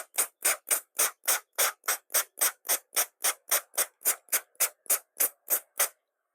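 Hand trigger sprayer squirting water in rapid, evenly spaced pulls, about four squirts a second, stopping near the end.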